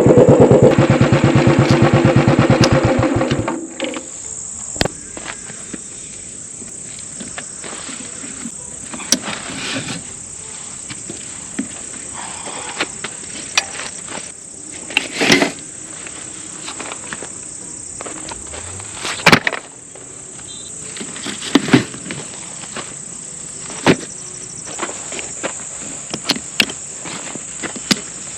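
A motor vehicle's engine running loudly for the first few seconds, then stopping. After that, a steady high-pitched chirring of insects such as crickets, with scattered short taps and knocks.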